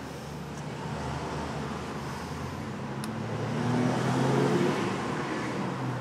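A motor vehicle's engine, growing louder to a peak about four seconds in and then easing off, over a steady low hum of traffic noise. A single light click sounds about three seconds in.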